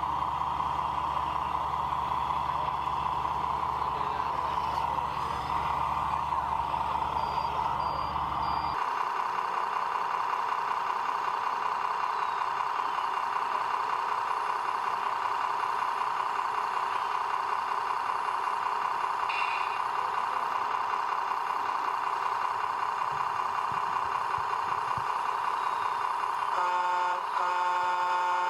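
Radio-controlled model truck running with a steady high whine; a low hum underneath cuts off about nine seconds in. Near the end a reversing beeper starts, sounding in short regular pulses.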